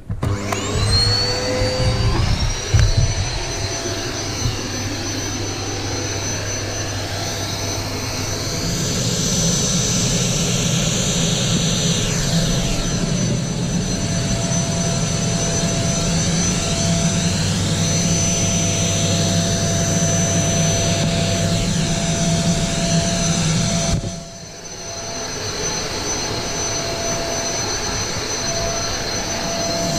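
Vacuum cleaner, with a cut-down drink bottle taped on as its nozzle, switching on and spinning up with a rising whine, then running steadily with a high whine over a low hum. Its sound dips briefly near the end and then picks up again.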